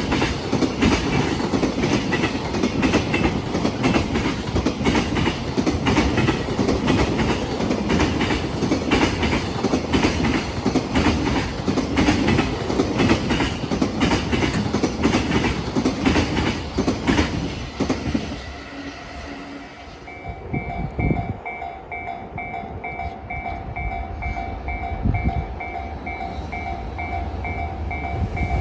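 Freight train passing at speed, its wheels clattering over rail joints in a rapid, heavy clickety-clack with a deep rumble. The train clears about 18 s in and the rumble falls away; from about 20 s a level-crossing warning bell rings, an even two-pitch ding repeating a few times a second.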